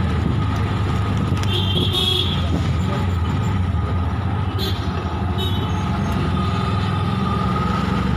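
Engine of the vehicle carrying the camera running steadily as it drives down a busy town street, mixed with passing traffic noise. A short high-pitched toot sounds about two seconds in.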